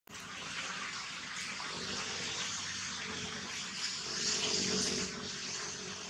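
Steady outdoor background hiss, swelling slightly about four seconds in.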